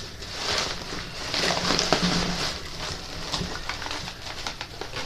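Rustling and crinkling of packaging handled by hand as a gift box is unpacked, with scattered small clicks; loudest in the first couple of seconds.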